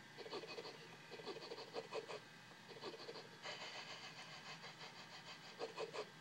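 A dog puppet's sniffing sound effect played through a small TV speaker: runs of quick short sniffs, coming in several bursts, faint.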